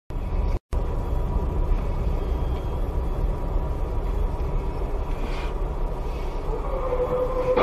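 Dashcam audio from inside a car waiting in traffic: a steady low rumble of engine and road noise. A steady tone comes in near the end.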